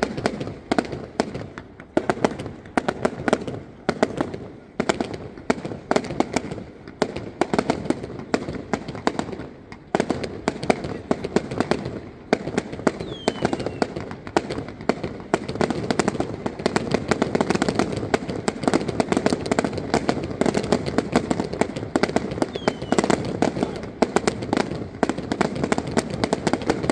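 Aerial fireworks display: a rapid, unbroken barrage of shell bursts and reports, many bangs a second, growing denser and more continuous in the second half.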